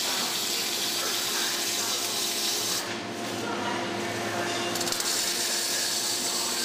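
Robotic arc welding: the welding arc hissing and crackling. The arc stops about three seconds in and strikes again less than two seconds later. A steady hum runs underneath.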